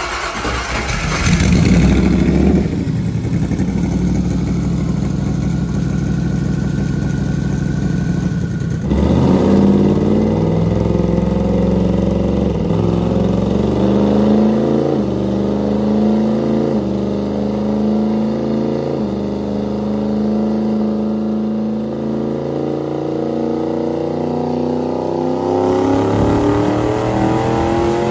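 Turbocharged Ford Coyote V8 running on a chassis dyno, then, about 9 seconds in, pulling hard under load on a first low-boost test pull. The engine note climbs, falls back several times, then climbs steadily again near the end.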